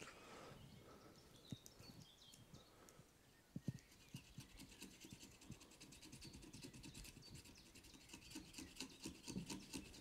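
Faint knife blade scraping along a wooden log in a quick run of short strokes, shaving off fine curls of wood as fire-lighting tinder. The strokes begin about four seconds in, after a couple of soft knocks.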